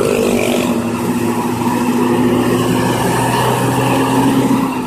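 Mercedes-Benz diesel engine of an intercity bus running loud with a steady roar, its pitch and loudness rising a little near the end before dropping away.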